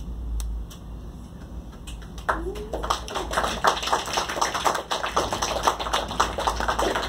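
A small audience applauding. The clapping starts about two seconds in and dies away near the end.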